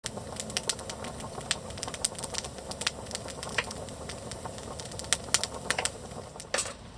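Wood campfire crackling: irregular sharp pops and snaps over a low steady hiss.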